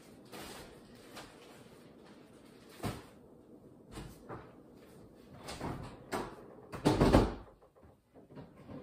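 Kitchen handling noises: items being moved and set down, with several sharp knocks like cupboard doors or drawers shutting, the loudest clatter about seven seconds in.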